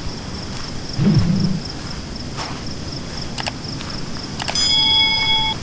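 Steady rushing of a fast, swollen river after a night of heavy rain, with insects droning at a constant high pitch. A brief low sound comes about a second in, and near the end a steady electronic-sounding tone holds for about a second.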